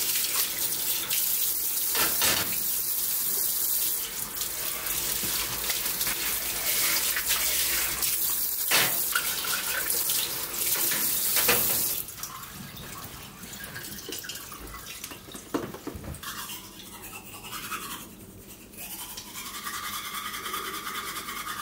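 A kitchen tap runs into the sink while dishes are washed and set in a wire drying rack, with a few knocks of crockery. About halfway through the water stops, and the rest is the scrubbing of a toothbrush on teeth.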